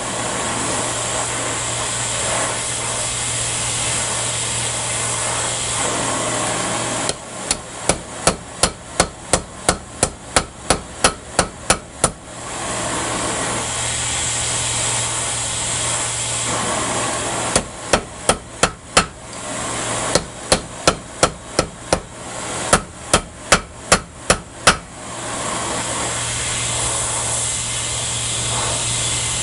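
Hand hammer striking hot bronze, a bearing retainer being forged into a knife guard, on a steel anvil, in fast runs of blows about three a second: one run about 7 seconds in and a longer broken run from about 17 to 25 seconds. Between the runs there is a steady hiss of the forge.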